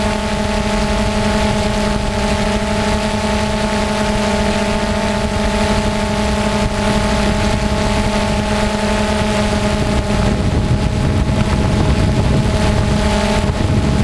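FPV quadcopter's motors and propellers buzzing at a steady pitch, with wind rushing over the onboard microphone. The wind noise grows in the last few seconds as the buzz fades.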